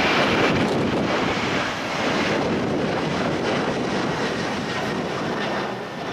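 Jet airliner engine noise slowly fading away, mixed with strong wind buffeting the microphone.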